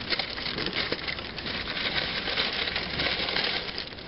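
Paper fast-food wrapper crinkling and rustling as it is handled and folded, with many small crackles.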